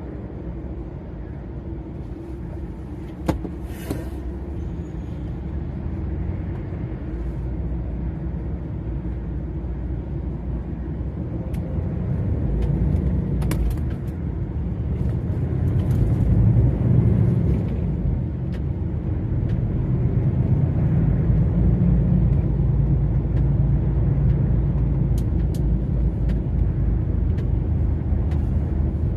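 DAF XF 480 lorry's six-cylinder diesel and road noise, a steady low drone that grows louder from about twelve seconds in. A sharp click and a short hiss come about three seconds in.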